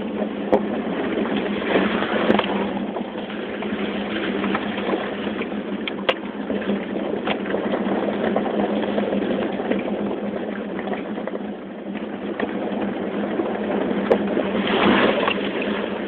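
Cabin noise inside a 2005 Toyota 4Runner driving along a gravel trail: the engine running steadily, with tyres rolling over gravel and stones. A few short clicks and knocks are scattered through it, and the noise grows louder near the end.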